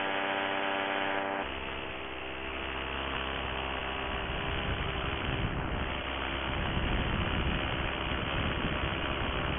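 Paramotor trike's engine and propeller running steadily in flight as a constant hum. About a second and a half in, the hum gives way to a rougher rushing rumble as the trike banks hard into a fast turn.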